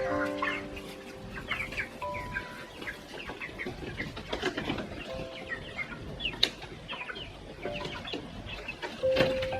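Backyard chickens clucking and chirping in many short calls, with a few sudden wing flaps, under soft background music.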